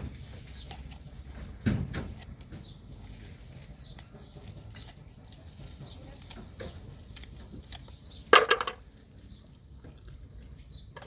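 Kitchen clatter: scattered clinks and knocks of pots, dishes and utensils during cooking, with a thump about two seconds in and a louder brief clatter or cry near the end.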